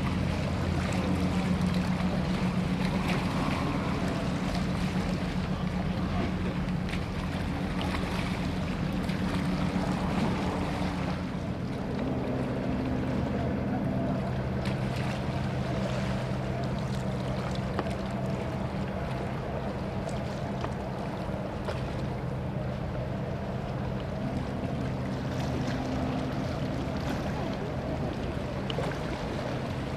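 A ship's engine droning steadily at low pitch, its hum shifting a little about a third of the way in, over the wash of water and wind.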